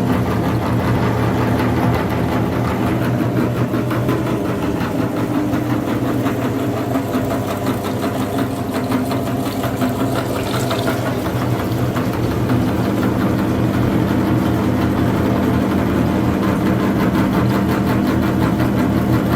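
Electric meat grinder running steadily, its motor humming under a continuous grinding rattle.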